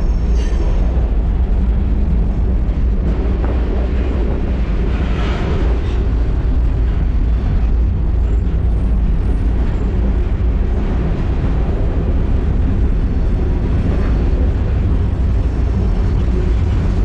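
Freight train running: a loud, steady low rumble of wheels and cars that holds without a break.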